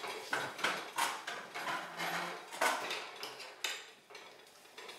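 Children pulling out metal-framed chairs and sitting down at a kitchen table on a tiled floor: a string of irregular knocks and scrapes, with plates and tableware clattering.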